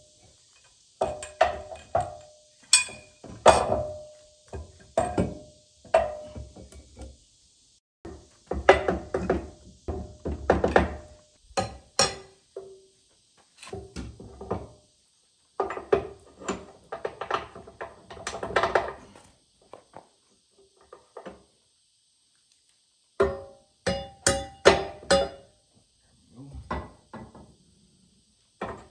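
Irregular clusters of metal knocks and clanks, some ringing briefly, from the Bobcat S250 hydraulic lift cylinder's rod and freshly lubricated seals being worked back into the barrel, with short pauses between bursts.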